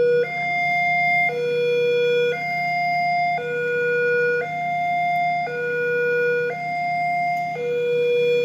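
Railway level-crossing warning alarm sounding, an electronic two-tone signal that switches between a low and a higher tone about once a second, over a steady low hum. It signals that a train is approaching with the barriers down.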